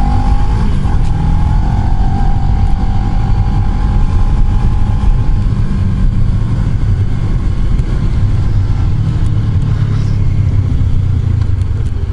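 Kawasaki Ninja 650's parallel-twin engine running under way, under heavy wind rush on the helmet-mounted microphone. A whining engine note climbs slightly at the start, holds, and fades out about five seconds in.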